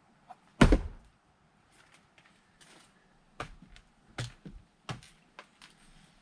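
An axe strikes a log of firewood once, hard, about half a second in. Several lighter wooden knocks follow a few seconds later, as split pieces are handled or dropped.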